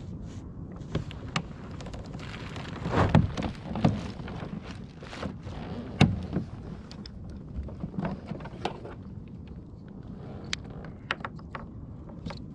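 Water sloshing and splashing against a kayak, with scattered knocks and clicks from handling on the boat; the loudest splashes come about three and six seconds in.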